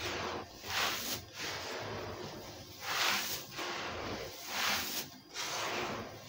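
A hand sweeping and raking through loose crushed soft-concrete grit on a floor: a gritty scraping rustle in repeated swipes, about one a second.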